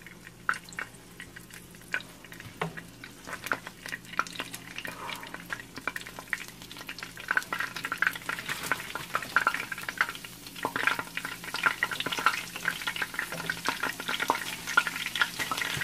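Egg rolls frying in a pan of hot oil, a steady sizzle with dense crackling and popping that grows busier and louder after about six seconds.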